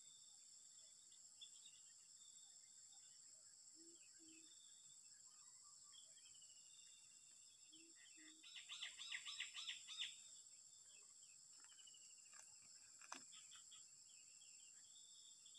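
Spotted dove giving faint low coos, two short paired notes twice. A steady high insect drone runs underneath, and about nine seconds in another bird gives a loud burst of rapid chirping.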